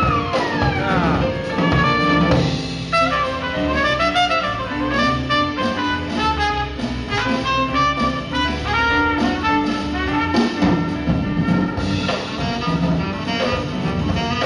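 A band playing, with a horn carrying a quick, winding melody over drums. The horn slides down in pitch near the start.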